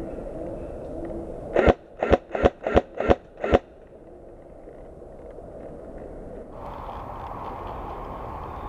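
Airsoft gun firing six shots in quick succession, about three a second, each a sharp crack.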